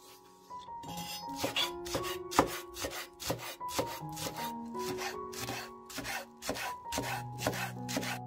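Chef's knife chopping spring onions on a bamboo cutting board: a steady run of sharp blade strikes against the wood, about three a second, starting about a second in. Soft background music with sustained notes plays under it.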